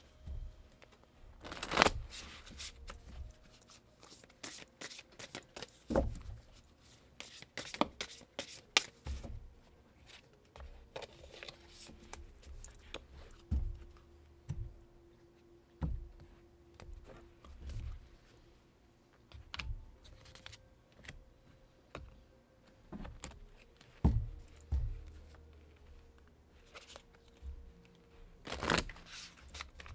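A deck of oracle cards being shuffled by hand: an irregular run of soft riffles, slides and slaps of the cards, with a few louder snaps scattered through.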